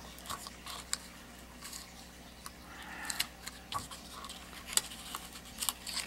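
Fingers rubbing and pressing on die-cut cardstock to work the cut pieces free: faint paper scratching with scattered light clicks.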